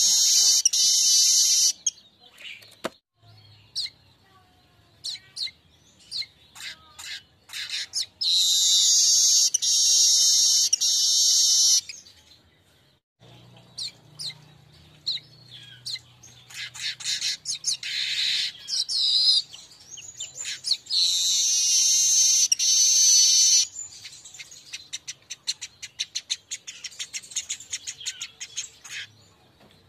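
Streaked weaver song: three long, dry, high-pitched hissing trills of two to three seconds each, separated by scattered sharp chips, with a fast run of ticking chips near the end.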